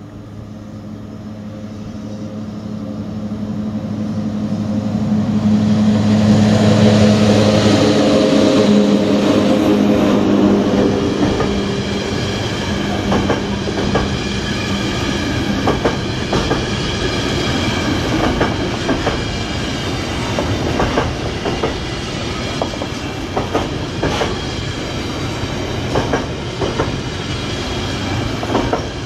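EU07 electric locomotive approaching and passing at the head of a container freight train: its steady hum grows louder over the first several seconds and fades about a third of the way in. Then the loaded container flat wagons roll by with a steady rumble and repeated clicks of wheels over rail joints.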